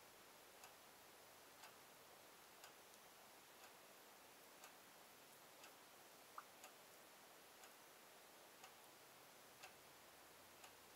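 Near silence: faint room tone with a soft tick about once a second.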